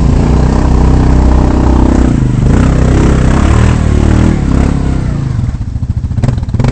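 Quad ATV engine revving hard under load as it churns its way out of deep mud, pitch rising and falling with the throttle, then easing off after about five seconds.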